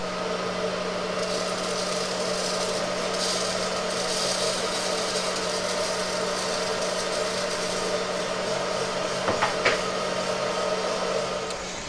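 Aillio Bullet drum coffee roaster running steadily: a hum with a held low tone under a rattling hiss, and a couple of sharp clicks about nine and a half seconds in.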